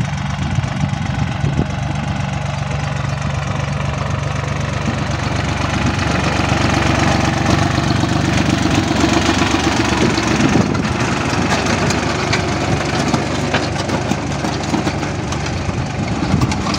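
Small tractor's diesel engine running steadily while it works between crop rows, with a rattling knock to its note; it grows louder for a few seconds around the middle as the tractor comes close.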